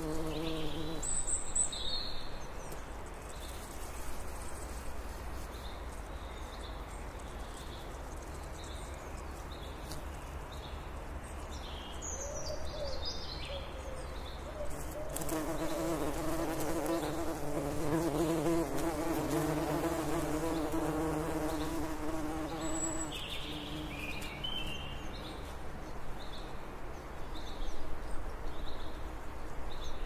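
Bees buzzing, one passing close and louder for several seconds mid-way, while birds call in the background with short high notes about once a second and a few brief song phrases.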